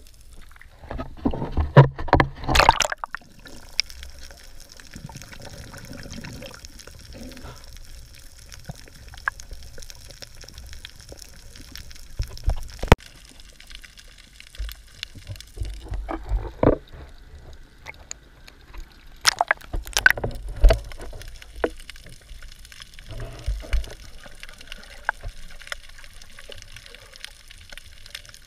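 Muffled sloshing and bubbling of water around an underwater camera as a snorkeler swims near the surface, with several irregular louder splashes and knocks.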